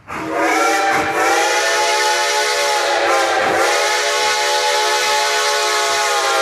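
Steam locomotive whistle blowing one long blast over a hiss of steam, starting suddenly; its pitch sags briefly about three seconds in, then holds steady.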